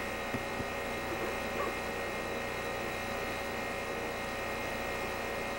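Steady electrical hum with hiss, and two faint clicks about half a second in.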